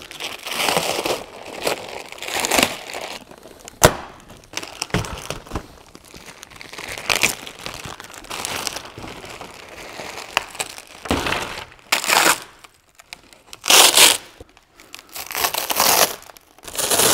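Thin plastic vacuum-bag film crinkling and rustling as it is pulled back by hand off a mold, with a sharp click about four seconds in. Later come several louder bursts of ripping as the infusion mesh is peeled off the cured laminate.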